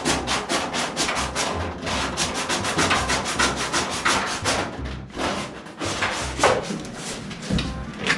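Hand sanding on the steel body of a 1969 Dodge Charger: quick back-and-forth strokes of abrasive on bare sheet metal, several a second.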